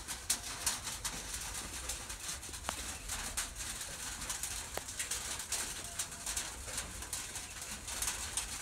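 Rain pattering steadily, a dense run of irregular drop taps, with birds calling in the background.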